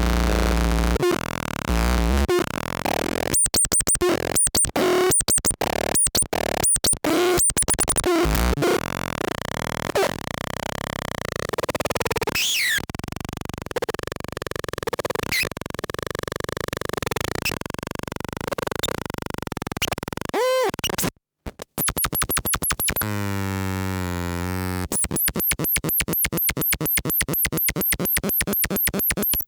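Lefty's Sound Lab Rumble Noise, an analog noise synth and fuzz pedal, putting out glitchy electronic noise: stuttering chopped bursts and warbling pitch sweeps, a brief dropout about two-thirds through, then a fast even run of repeated chirps near the end.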